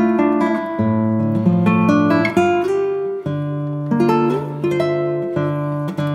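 Background music: a plucked guitar playing slow, sustained chords, the notes changing about once a second.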